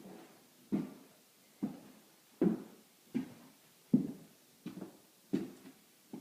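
Footsteps at a steady walking pace, about eight steps, each a short thump with a brief echo off the bare walls of an empty room.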